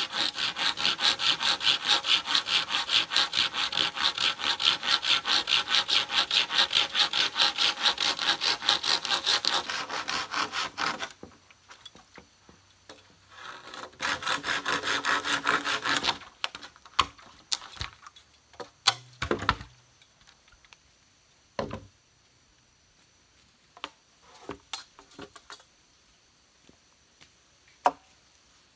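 Hand saw cutting through a green bamboo pole in quick, even back-and-forth strokes for about ten seconds. After a short pause there is a second bout of sawing a few seconds long, then only scattered light knocks and clicks.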